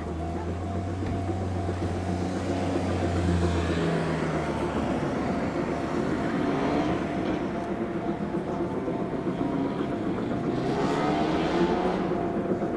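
C12 tank steam locomotive working hard as it pulls a train away, throwing up a heavy exhaust, mixed with the sound of road vehicles. A low steady hum fades about four seconds in, and there are passing sweeps about halfway through and again near the end.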